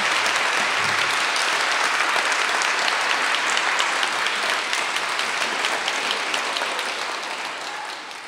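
Audience applauding, a dense spread of many hands clapping that fades out near the end.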